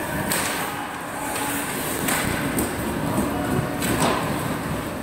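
Ice hockey play heard close to the rink: skate blades scraping across the ice, with several sharp clacks of sticks, puck or boards over a steady arena hiss.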